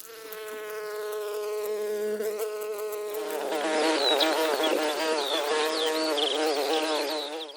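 Bee buzzing: a steady, even buzz for about three seconds, then louder with a wavering pitch, stopping just before the end.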